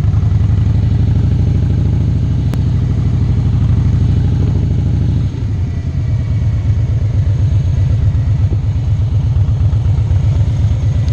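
Harley-Davidson V-twin motorcycle engine running close up as the bike rolls along at low speed, a steady low pulsing. About five seconds in the sound drops a little and the beat changes.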